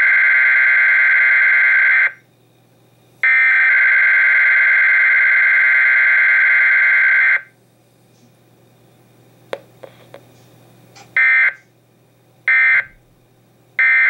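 Emergency Alert System SAME data tones of a Required Weekly Test: two long, loud screeching header bursts, the second lasting about four seconds. A few seconds with only faint clicks follow, then three short end-of-message bursts evenly spaced near the end.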